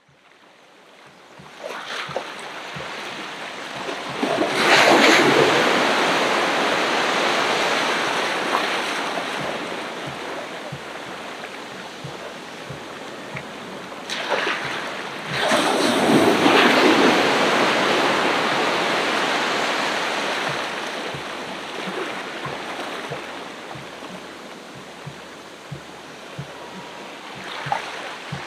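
Ocean waves breaking on a beach. The sound fades in from silence, then two big surges of surf about eleven seconds apart each wash in and slowly recede, and a third begins near the end.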